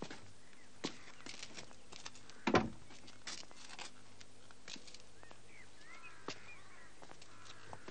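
Footsteps and scattered small knocks on a doorstep, with one louder thump about two and a half seconds in. Birds chirp from about halfway through.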